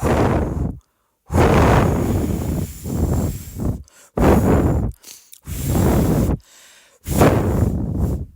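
Added cartoon sound effects: five loud, noisy, whoosh-like bursts, each between about half a second and two and a half seconds long, with short gaps between them.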